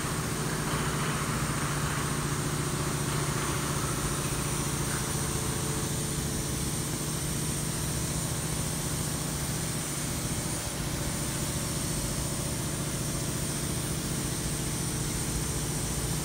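Stationary diesel engine running steadily at an even idle, a constant low hum with a steady high hiss above it.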